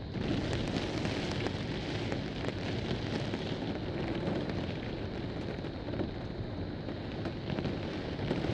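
Heavy rain pouring steadily in a severe thunderstorm, with a dull low rumble of wind beneath it.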